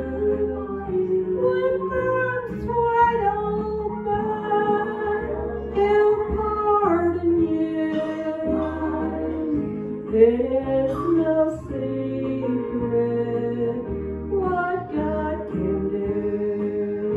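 A woman singing a slow song into a microphone over instrumental accompaniment, with held notes that glide between pitches.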